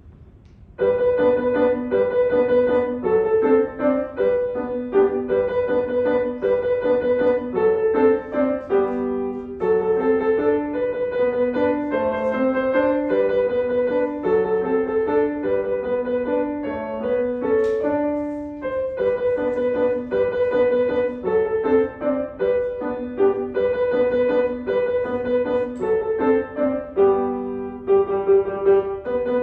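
Piano playing a recital piece: a melody built on quick repeated notes, starting about a second in.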